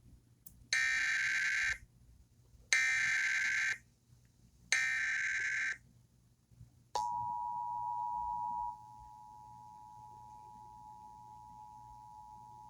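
Emergency Alert System activation tones: three one-second bursts of the screeching SAME digital header, about two seconds apart. About seven seconds in comes the steady two-tone attention signal, which drops in level after about two seconds and carries on.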